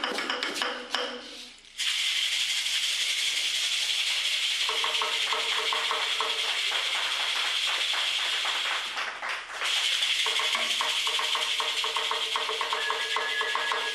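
A handheld cluster rattle shaken fast and continuously in a steady hiss, breaking off briefly about nine seconds in. From about five seconds a pitched sound with a quick pulse runs along with it.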